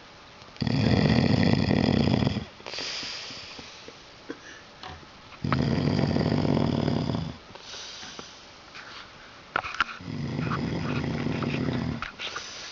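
A drunk man snoring heavily in his sleep: three long, loud snores, each about two seconds, coming about every four to five seconds with quieter breaths between them.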